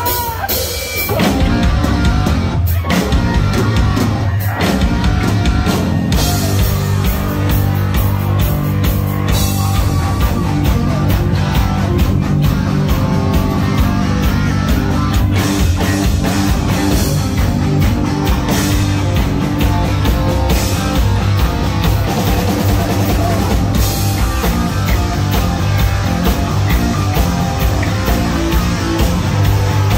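Live heavy metal band playing loud: distorted electric guitars, bass and drum kit. It opens with a few separate heavy hits in the first seconds, then the full band plays steadily.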